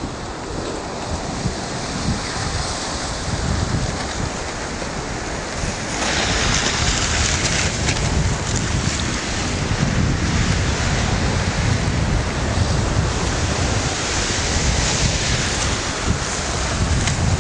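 River drift ice (floes and slushy pancake ice) grinding and rustling against itself as it floats downstream, a dense hiss that gets louder about six seconds in, with wind buffeting the microphone.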